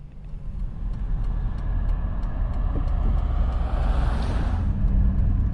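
Road noise from inside a moving car: a low engine and tyre rumble with a rushing sound that swells, loudest about four seconds in, then eases off.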